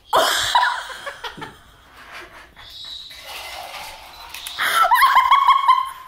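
A woman laughing, in a loud burst at the start and again in a long pulsing run near the end, quieter in between.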